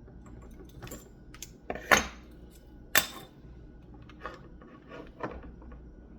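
Scattered clicks and knocks of small tools and parts being handled and set down on a work surface during wire soldering, the two sharpest about two and three seconds in, over a steady low hum.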